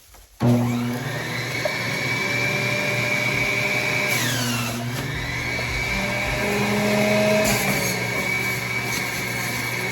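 Electric juicer switched on about half a second in, its motor running steadily with a low hum and a high whine while juicing watermelon. About four seconds in, a brief sweep falls in pitch.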